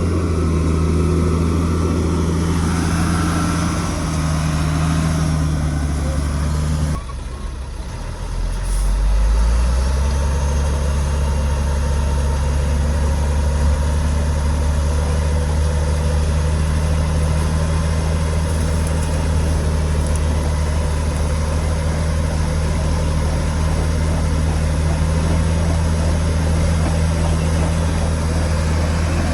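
Heavy diesel engine of earthmoving machinery running steadily with a deep, even note. About seven seconds in the sound breaks off abruptly, and a deep engine note comes back in a second or two later and runs on steadily.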